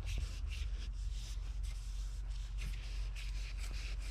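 Shop rag wiping and rubbing a transmission part, a series of irregular brushing strokes over a steady low hum.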